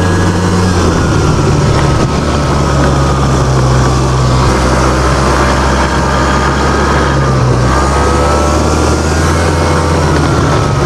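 2003 Ski-Doo Legend snowmobile engine running under way, its pitch rising and falling gently as the throttle changes, over a steady rush of noise.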